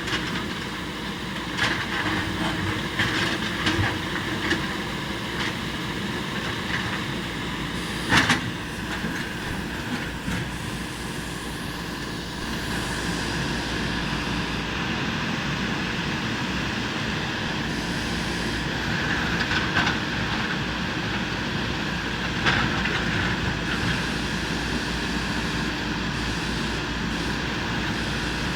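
Backhoe loader's engine running steadily while it works, with several sharp knocks and clanks, the loudest about eight seconds in.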